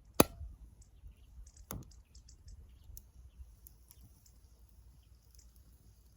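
Wood fire crackling in a Sierra stove: one sharp loud pop just after the start, a second softer pop under two seconds in, then small scattered crackles.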